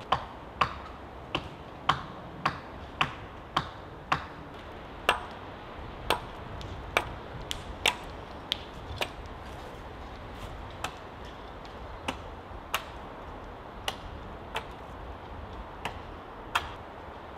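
A series of sharp knocks, a tool striking wood while fence posts and rails are worked, roughly one to two blows a second at first, then fainter and more spaced out from about halfway.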